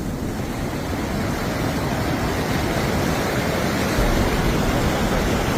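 Floodwater rushing: a loud, steady roar of flowing water with a heavy low rumble, which swells slightly about four seconds in.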